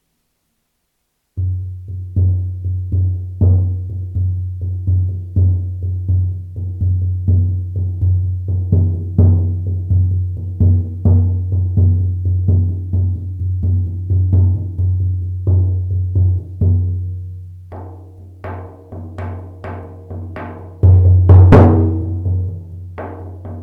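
A large shaman frame drum, about 50 cm across, beaten in a steady rhythm of about two to three strikes a second, each stroke with a deep, lingering boom. The drumming starts about a second and a half in, eases off for a few seconds, then comes back louder.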